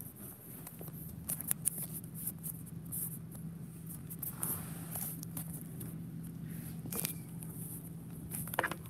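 Handling noise from a phone camera being moved and set down: scattered small clicks and rubs over a steady low hum in a quiet room.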